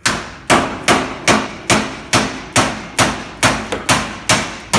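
Steady hammer blows on a steel chisel, about two and a half a second, working out the nails that fix a wall-mounted air conditioner to the wall.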